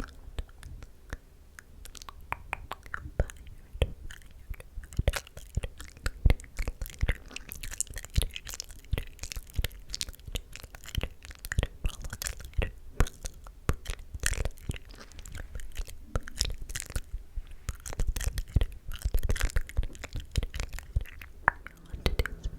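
Close-miked ASMR mouth sounds: a rapid, irregular run of wet clicks and smacks, mixed with inaudible whispering.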